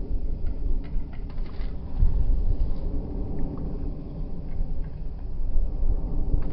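Low, uneven rumble of a distant jet airliner in flight, mixed with wind buffeting the phone's microphone.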